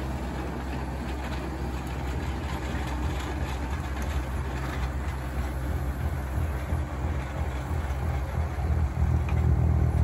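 Kubota M6040 tractor's four-cylinder diesel engine running steadily while driving a PTO-powered Bush Hog snowblower that is throwing snow. The engine grows louder about nine seconds in.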